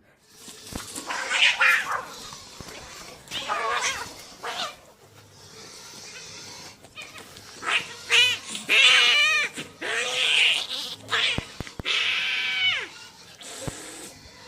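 Cats caterwauling in a fight: a string of drawn-out, wavering yowls, the loudest and most warbling ones in the middle, with a few short sharp knocks near the end.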